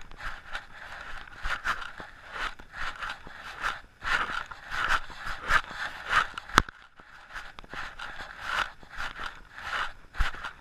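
Hiker's footsteps crunching on a dirt trail, with pack straps and clothing scraping against a body-carried camera, about two steps a second. There is a sharp click about two-thirds of the way through.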